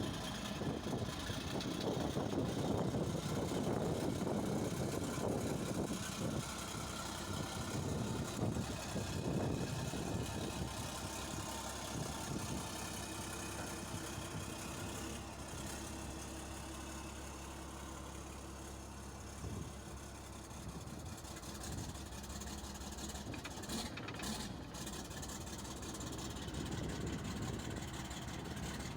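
Engine of a large Mercedes machine running steadily at idle, a little louder for the first several seconds.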